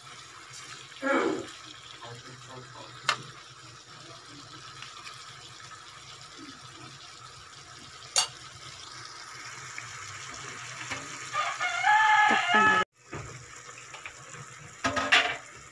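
Chicken adobo simmering in an aluminium wok with a faint steady hiss, a metal spoon clinking against the wok twice. A rooster crows in the background about three-quarters of the way through; it is the loudest sound.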